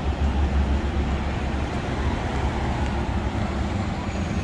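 Steady city street traffic noise: an even hum of passing vehicles with a strong low rumble underneath.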